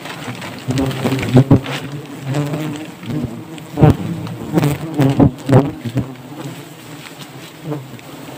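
Swarm of wild honeybees buzzing around their open hanging comb, with single bees passing close and loud several times, the loudest about a second and a half in, at four seconds and around five and a half seconds.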